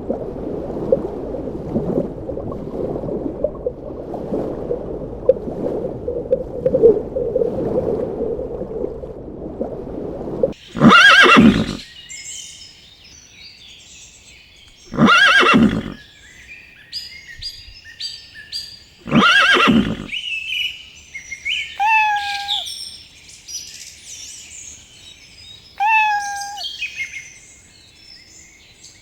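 A horse whinnying three times, each neigh about a second long and falling in pitch, after about ten seconds of low crackling, rustling noise. Birds chirp after the first neighs, with a short falling call repeated every few seconds.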